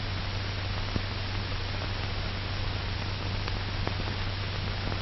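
Steady hiss and low hum of an old film soundtrack, with a faint click about a second in.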